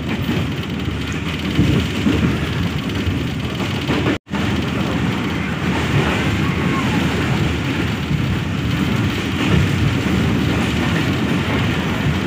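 Passenger train coach running at speed over old, flood-damaged track, heard from inside the carriage: a steady rumble of wheels on rails. The sound breaks off for an instant about four seconds in.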